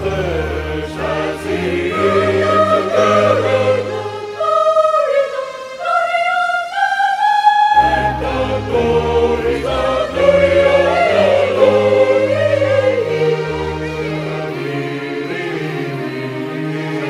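Mixed church choir singing a Christian anthem in parts over a low bass line. For a few seconds in the middle the bass drops away while the upper voices climb step by step, then the full choir returns.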